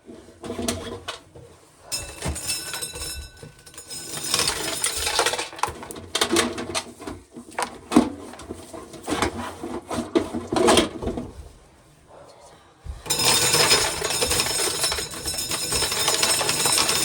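Hand-cranked corn sheller rattling as ears of corn are fed through it, the shelled kernels clattering out. The clatter comes in uneven spells, stops briefly, then runs steadily through the last few seconds.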